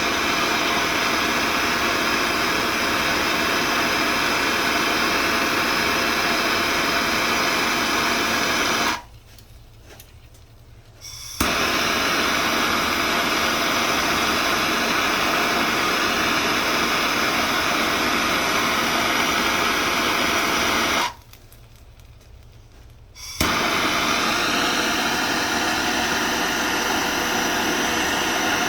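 Gas soldering torch flame burning with a steady loud hiss while sweating copper pipe joints. It is shut off twice for about two seconds and relit each time with a sharp click.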